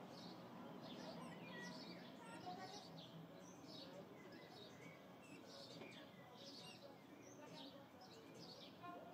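House sparrows chirping faintly and repeatedly, several short chirps a second, over a low steady hum of town background noise.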